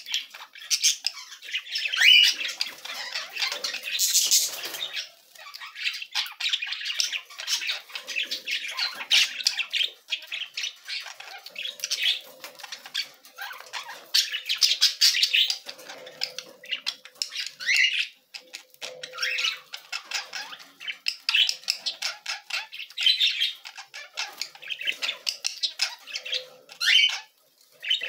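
Young budgerigars chattering: a constant run of quick, high chirps and squawks, with a couple of brief lulls.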